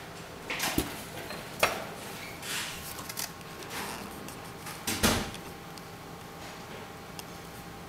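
A few brief knocks and scuffs, the loudest about five seconds in, over a faint steady hum.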